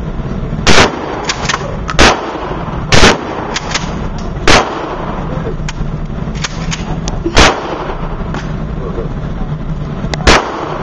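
Six loud gunshots, one to three seconds apart, with fainter sharp cracks from other guns in between.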